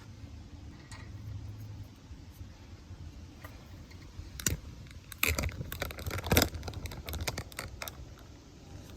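Sharp clicks and knocks from handling a hydraulic garage jack during repair: one knock about four and a half seconds in, then a quick irregular run of clicks and knocks lasting a couple of seconds.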